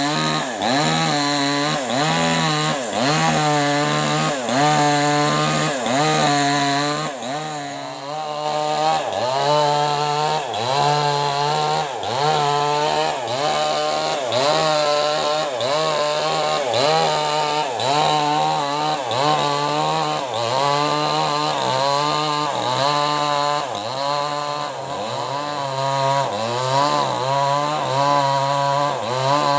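Maestro CS6500L two-stroke chainsaw cutting lengthwise through an acacia log, its engine pitch rising and falling over and over, about one and a half times a second, as the chain works through the wood.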